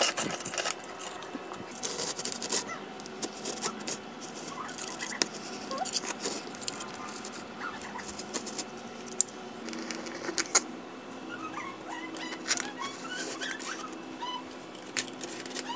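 Caulk removal tool's metal blade scraping old silicone caulk out of the joint between a countertop and tile backsplash, in short irregular scratches and clicks. The caulk is being stripped because it has cracked.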